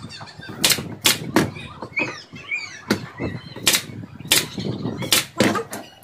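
Nail gun driving nails into a frame of wooden slats: about eight sharp shots at uneven intervals.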